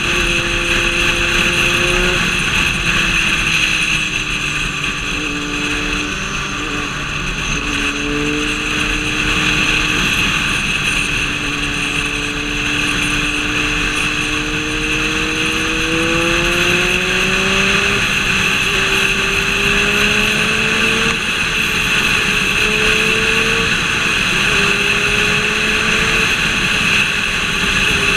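Vehicle engine running on the move, its note gliding slowly down and back up, then stepping up and down in pitch several times in the second half, over a steady hiss of wind and road noise.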